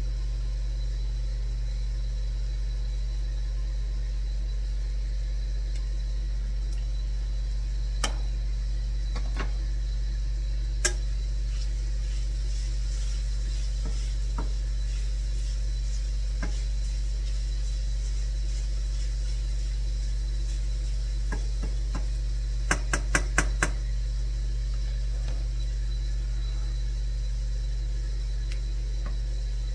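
Steady low hum of a Ninja countertop grill running, with a few scattered clicks and knocks of kitchen utensils or containers being handled, and a quick run of five light taps about two-thirds of the way through.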